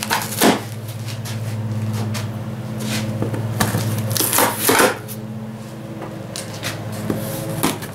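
Screwdriver prying and scraping metal staples out of a taped cardboard box, in short scratchy scrapes and clicks, most of them about halfway through. A steady low hum runs underneath.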